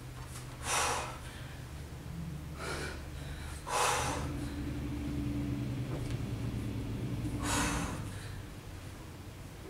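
A woman breathing hard with exertion during a roll-out to boat-pose exercise: sharp breaths about a second in, near four seconds and near seven and a half seconds, with a weaker one near three seconds, over a low steady hum.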